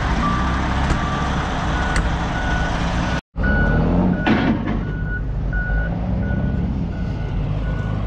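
Forklift reversing alarms beeping at about two beeps a second over the low running of their engines.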